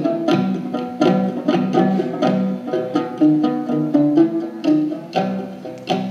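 Tibetan dranyen lute music: quick, rhythmic plucked and strummed notes carrying a lively traditional melody, with a second stringed instrument playing along and no singing.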